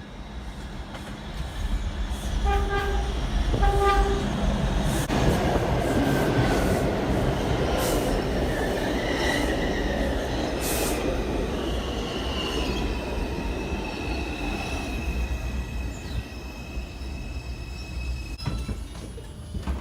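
R142 subway train giving two short horn blasts, then running in with a loud rumble of wheels on rail. A high steady wheel or brake squeal, falling slightly in pitch, comes in past the middle as it slows, with a few clicks near the end.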